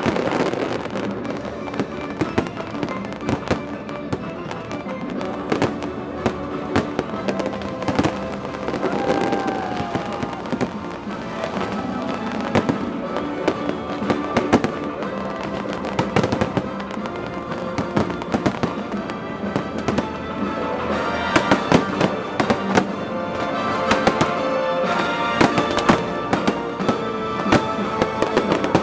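Aerial fireworks bursting in rapid, overlapping bangs and crackles, the barrage growing denser and louder about two-thirds of the way through, with music playing underneath.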